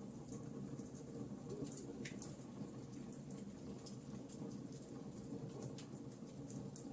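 Fire in a fireplace crackling: irregular sharp pops and snaps over a steady low rumble of the flames, with one louder pop about two seconds in.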